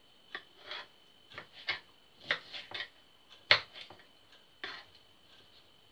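Kitchen knife chopping soft bottled pears into chunks on a wooden chopping board: a run of irregular light knocks as the blade meets the board, the loudest about three and a half seconds in.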